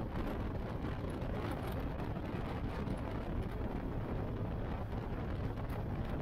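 Motorcycle riding at a steady road speed: engine and rushing air blend into an even, unbroken noise.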